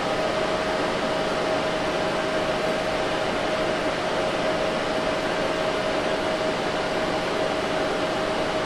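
Steady fan-like whir of a running ZVS induction heater rig and its water-cooling setup, an even hiss with a constant mid-pitched hum over it.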